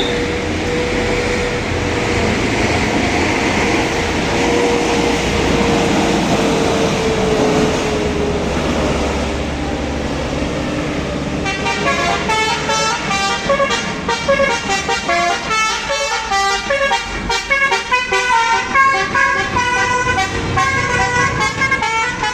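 Tour bus engine labouring up a steep climb, with a steady tone sliding slowly lower. About halfway in, a telolet multi-tone bus horn starts playing a quick tune of changing notes.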